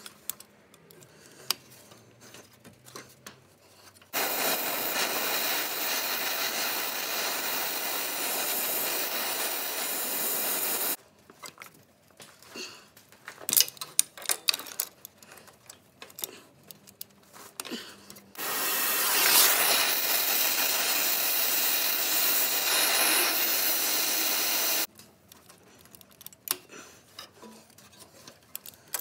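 Two long, steady hisses of about seven seconds each, starting and stopping abruptly. Between them come short metal clicks and knocks from hand tools on the rusty exhaust manifold studs.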